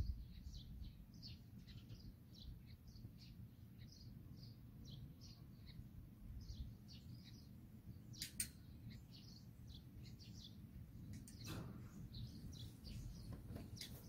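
Small birds chirping many times over in quick short notes, faint, over a low steady rumble. There are a couple of brief clicks, one about eight seconds in and one about eleven and a half seconds in.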